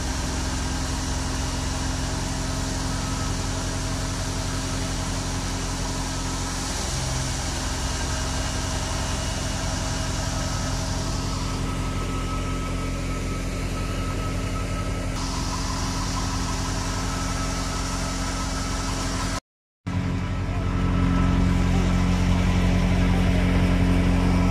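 A Fiat 640 tractor's diesel engine running steadily while driving a wheat thresher. The sound cuts out briefly near the end and comes back louder.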